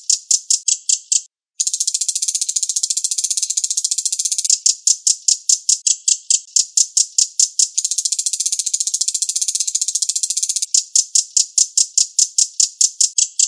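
Recorded song of a reno bird: a high, buzzy trill that switches between a continuous churr and a rapid rattle of about seven pulses a second, with a brief break about a second in.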